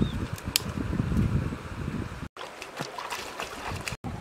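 Dry twigs rustling and knocking, with one sharp snap about half a second in. Then, after a cut, bare feet wade and splash through shallow river water.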